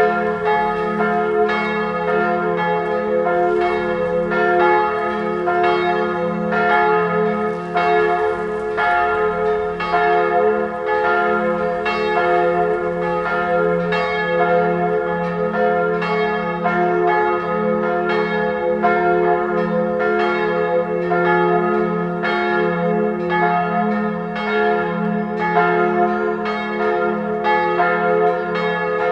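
Full peal of three swinging church bells: two Perner bells cast in 1979, tuned f¹ and a♭¹ a minor third apart, with a small high b² bell from about 1799 ringing above them. The strikes come several times a second in an irregular overlapping pattern, and the ringing hum is steady in level.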